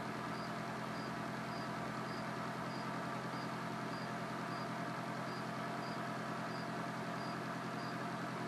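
Steady mechanical hum with a constant hiss, and a faint short high beep repeating a little more than once a second.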